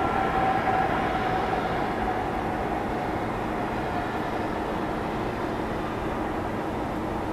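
Airbus A300-600F's Pratt & Whitney PW4000 turbofans rumbling on the landing roll, with a faint whine that fades over the first few seconds as the engines wind down and the freighter slows.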